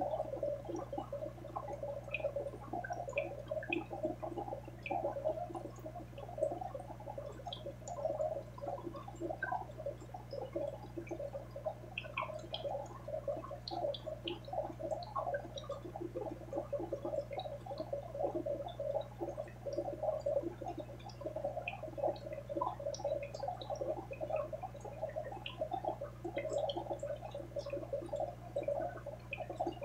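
Aquarium water bubbling and gurgling steadily, with small pops of bursting bubbles and a steady low hum underneath.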